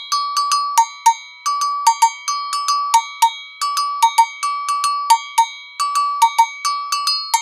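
Agogo bells, a pair of metal bells of a lower and a higher pitch, struck with a stick in a repeating rhythmic pattern. There are several strikes a second, each ringing briefly.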